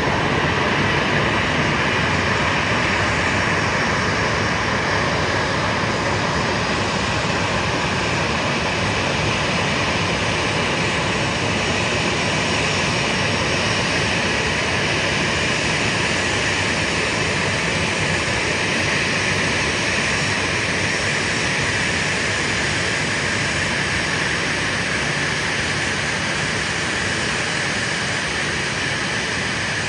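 Boeing 737-800's CFM56-7B jet engines running at idle: a steady, even jet roar with a strong hiss in the upper middle range.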